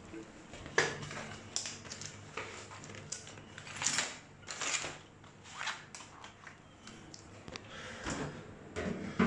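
Hand tools and a canvas tool roll being handled: scattered clicks, knocks and rustles, with one sharp knock about a second in, over a low steady hum.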